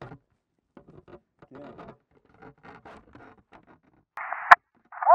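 Soft rustling and scraping of plastic armor pieces as the suit is shifted, then about four seconds in a short hiss and a single sharp, loud handgun shot.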